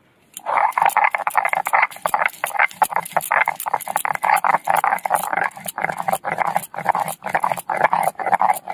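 Stone roller grinding chopped onion and garlic on a shil-nora grinding stone: rapid, rough scraping and crushing strokes with many sharp clicks, starting about half a second in.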